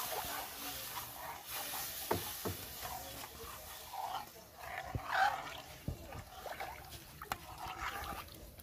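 Long metal spoon stirring a stew in a large aluminium pot, with a few sharp clinks against the pot. A few short animal cries, like a dog whining, about four to five seconds in.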